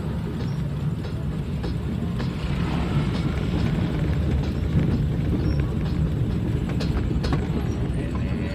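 Steady engine and road rumble of a public minibus (angkot) while driving, heard from the driver's seat.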